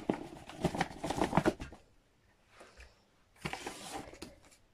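Cardboard box and paper packaging of a diamond painting kit being opened and handled: a run of quick scrapes, taps and rustles of card for about two seconds, then a pause and a second short burst of handling.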